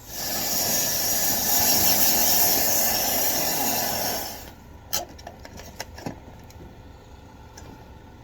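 A loud rush of air from dryer vent cleaning equipment, starting suddenly, hissing steadily for about four and a half seconds, then dying away. A few sharp knocks and clicks follow.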